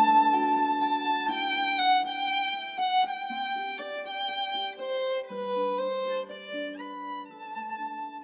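Instrumental background music: a slow melody of held notes over sustained accompaniment, getting quieter near the end.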